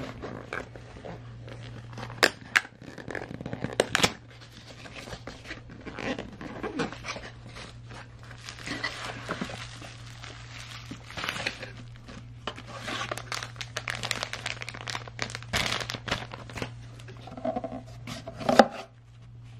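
Cardboard box and a bubble-wrap plastic bag being handled and pulled apart: rustling and crinkling with many sharp clicks and scrapes, one loud click near the end, over a steady low hum.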